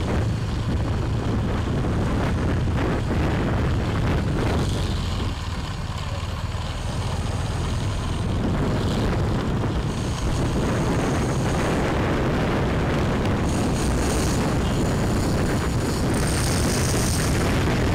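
Riding a motorbike through city streets: steady wind rumble buffeting the microphone over engine and road noise, easing briefly about six seconds in.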